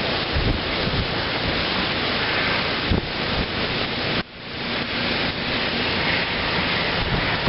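Wind buffeting the microphone in rainy weather: a steady rushing noise with gusty low rumbles that drops out briefly about four seconds in, then builds back.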